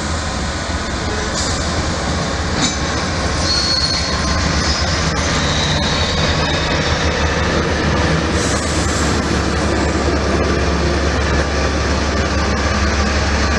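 DB class 362 diesel shunting locomotive running as it slowly moves a rake of passenger coaches along the platform: a steady low engine drone that grows slowly louder as it approaches. A few seconds in come faint high wheel squeals and a few sharp clicks.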